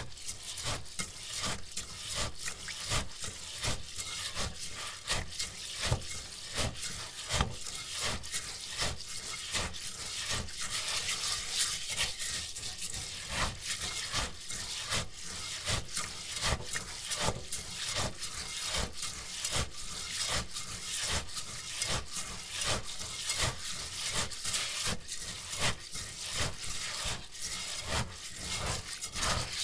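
Raw rice grains being scrubbed and stirred by hand in a bowl during washing, a gritty rubbing rasp in rapid, rhythmic strokes.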